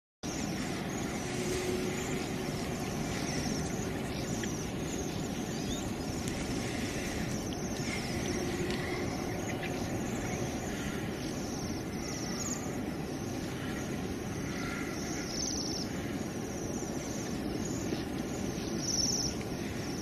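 Outdoor ambience with a steady background rumble and scattered faint chirps of small birds.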